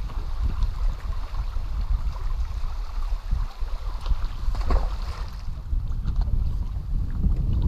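Wind rumbling on the microphone over water lapping against a boat hull, with a short splash a little over four and a half seconds in as a released largemouth bass hits the water.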